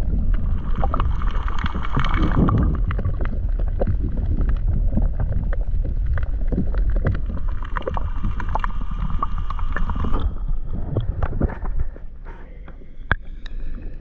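Kayak paddling through choppy sea, with wind buffeting the microphone and water splashing and sloshing, and scattered knocks. A steady high whine runs beneath it and stops about ten seconds in, after which the wind and water noise drops.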